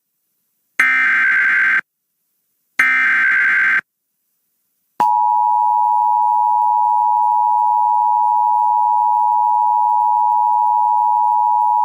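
Emergency Alert System activation. The last two of the three SAME header data bursts come first: harsh, warbling digital chirps, each about a second long, with a second of silence between them. After another second of silence, about five seconds in, the steady EAS two-tone attention signal starts and holds unchanged, announcing that an alert message follows.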